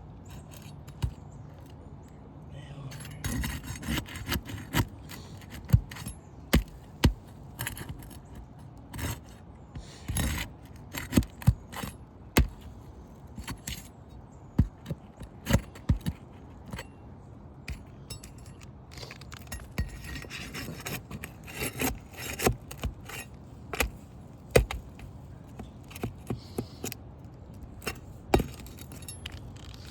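Roof shingles being pried loose by hand: scraping with many irregular sharp clicks and taps. The shingles are tearing through rather than lifting cleanly, a sign that they cannot be repaired.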